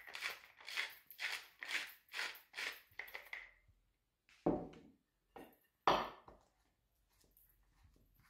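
Hand-twisted spice mill grinding seasoning, a rasping crunch with each twist, about two and a half a second, for roughly three and a half seconds. Then two sharp knocks about a second and a half apart.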